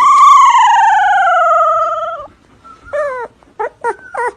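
A dog howling: one long call of about two seconds, slowly falling in pitch, then a few short whining yelps near the end.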